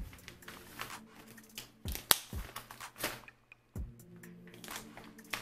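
Clear plastic packaging crinkling and rustling as hair bundles are handled, in a series of short, sharp crackles, the loudest about two seconds in and again near four seconds.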